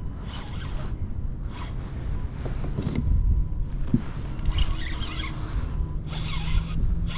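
Fishing reel cranked in repeated short bursts of rasping whir as a hooked fish is played, over a continuous low rumble.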